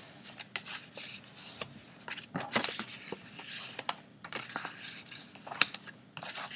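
Scored patterned paper being folded by hand along its score lines: rustling and crackling with short crisp clicks as the creases bend, and one sharper click late on.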